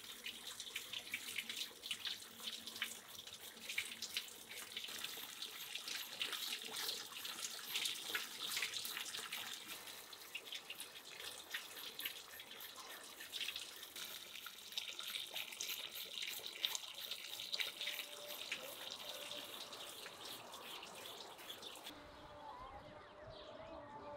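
Tap water running and splashing into a metal tray, with frequent clicks and scrapes as cow hooves are handled and scraped with a knife in the tray. Near the end the water sound cuts off abruptly, and only faint outdoor sound remains.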